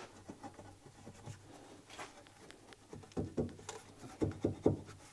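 Hollow clay brick slab (Hourdis slab) being knocked and pushed into place by hand: light scraping and clicks, then a handful of dull knocks in the second half as it is driven tight against its neighbours.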